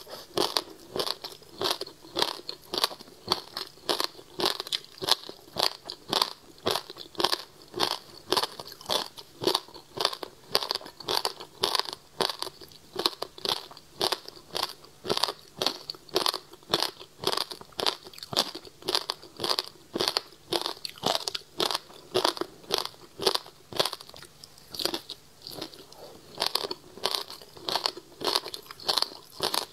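Frozen passion fruit pulp and seeds crunched between the teeth while chewing, close to a clip-on microphone. The crisp crunches come steadily, about two a second.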